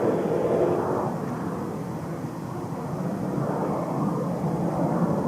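Jet airliner engines rumbling steadily and loudly, swelling near the start and again about four seconds in.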